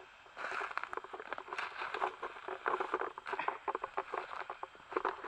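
Footsteps crunching and rustling through dry leaf litter and twigs on a forest floor, an uneven run of crackles that starts about half a second in and dies away near the end.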